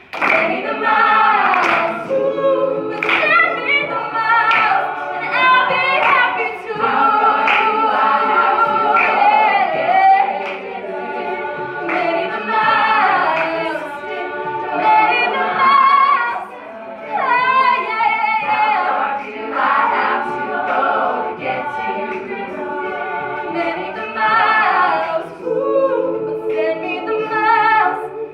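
All-female a cappella group singing in parts, voices only with no instruments, the sung notes held and moving together across the whole passage.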